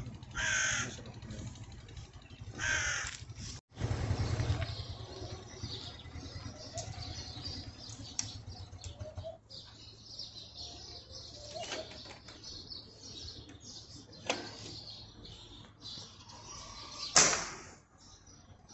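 A crow caws twice in the first few seconds. Near the end comes a single sharp crack, the loudest sound.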